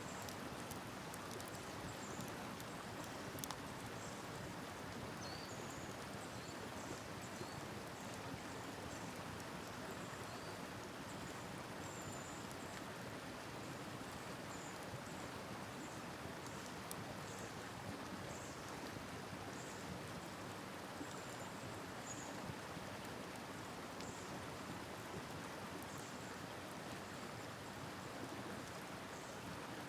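Steady rush of a river flowing, with short high chirps scattered throughout and a few sharp clicks.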